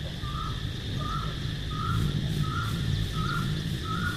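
A bird calling over and over, a bit more than one short, slightly rising call a second, growing a little louder, over a steady low rumble and a faint high hiss.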